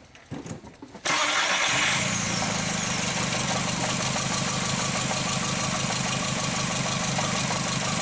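The 2.0-litre four-cylinder engine of a 2004 Volkswagen Jetta starts about a second in, with a short crank before it catches, then idles steadily. The engine has a misfire on cylinder 3, which is getting no spark.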